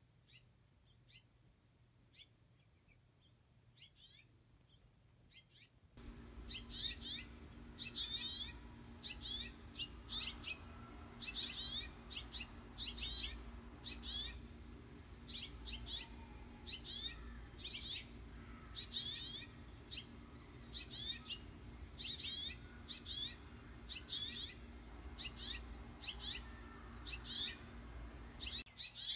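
House finches calling: faint scattered chirps at first, then from about six seconds in, loud repeated sharp cheeps, about two a second, over a steady low hum.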